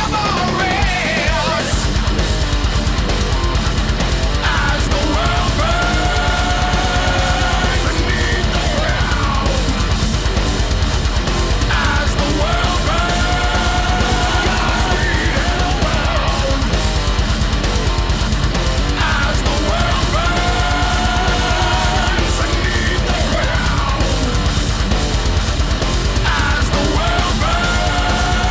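Background music: a heavy metal track with distorted electric guitar and a driving drum beat.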